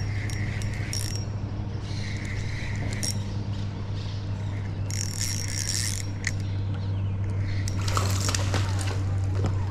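Fishing reel being cranked while playing a hooked fish, with mechanical clicking over a steady low hum and a louder rush of noise about eight seconds in.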